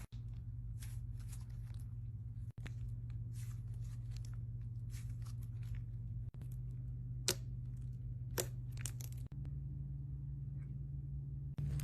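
Slime being stretched and squeezed by hand: soft sticky crackles and tearing sounds, with a few sharper pops about 7 and 8.5 seconds in, over a steady low hum.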